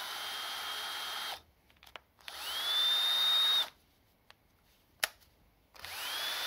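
Kress cordless drill motor, powered from a 12-volt test battery, spinning up and running in three short bursts of about a second and a half each. Each burst starts with a rising whine that then holds steady, and a single sharp click falls between the second and third. The motor runs, though the drill's chuck is rusted solid.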